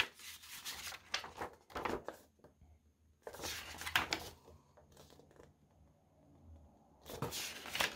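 Paper pages of a booklet being handled and flipped through, rustling in several short bursts, the longest about three seconds in and again near the end.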